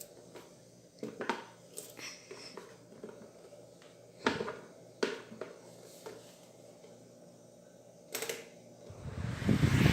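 Scattered clicks and knocks, then near the end the Britania Ventus 40 Turbo electric fan starts up, its motor and blades spinning up into a steady rush of air.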